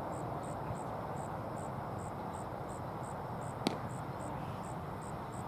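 A pitched baseball smacking into the catcher's mitt with one sharp pop about three and a half seconds in. Underneath, a steady outdoor hum and an insect chirping high and evenly, about three times a second.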